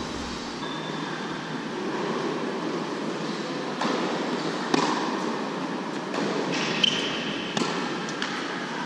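Tennis ball being hit back and forth on an indoor hard court: several sharp knocks of racquet strikes and bounces echoing in the hall, the loudest about five and seven seconds in, over a steady background hiss.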